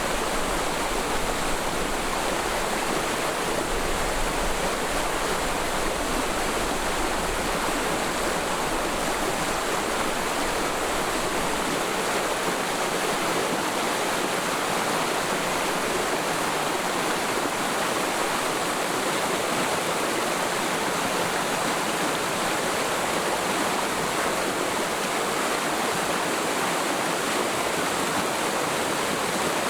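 Forest mountain stream flowing over rocks: a steady, even rush of water.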